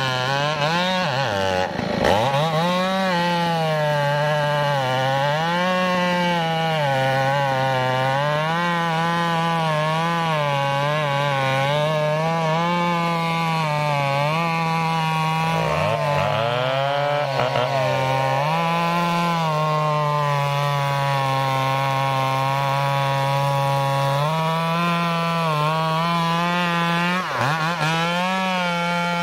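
Two-stroke chainsaw cutting into a sonokeling (Indonesian rosewood) log, its engine pitch sagging and recovering again and again as the bar bites and eases under load. A second saw's pitch glides across it around the middle and again near the end.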